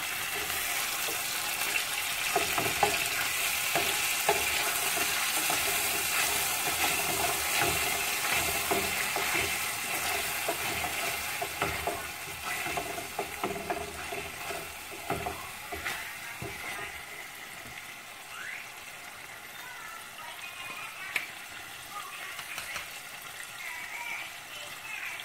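Tomato sauce with onions sizzling in a saucepan on a gas stove, stirred with a wooden spoon that knocks against the pan now and then. The sizzle is louder in the first half and dies down after about twelve seconds, when the stirring stops.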